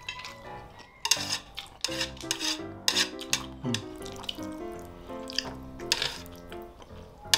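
Wet chewing of saucy jajangmyeon noodles, and metal chopsticks clicking and scraping on a metal baking tray as the saucy noodles are stirred and picked up. Background music with a melody comes in about two seconds in.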